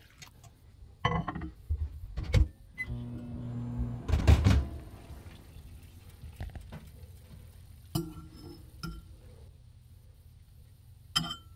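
A few knocks, then a microwave oven starts and runs with a low, steady hum, loudest just after it starts. A few light clicks and a clink near the end.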